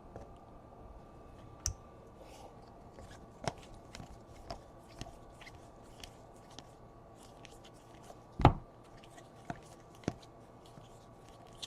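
Baseball trading cards and their plastic sleeves being handled: soft scattered ticks and rustles, with a louder knock about eight and a half seconds in.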